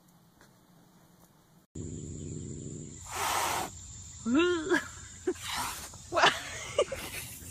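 A cat hissing in several short bursts, with one short meow that rises and falls in pitch between them.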